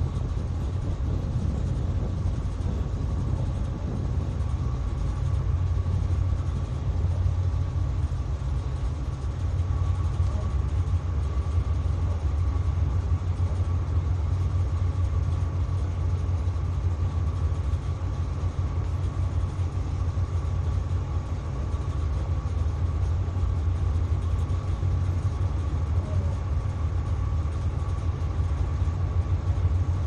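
Tugboat diesel engines running steadily, a deep even rumble heard inside the wheelhouse, with a faint steady high whine over it.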